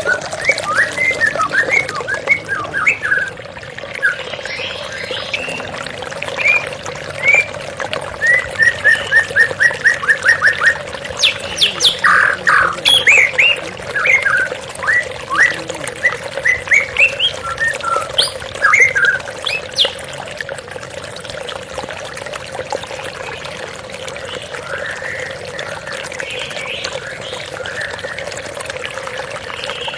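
White-rumped shama singing a varied song of whistled notes, squawks and a fast run of repeated notes, over the steady rush of flowing water. The song is busiest in the first two-thirds and thins out near the end.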